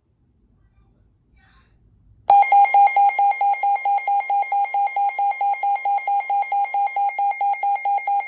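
Electronic emergency alert alarm: a loud beep pulsing rapidly at one steady pitch, about four times a second, starting about two seconds in. It is the alert that opens a severe thunderstorm warning.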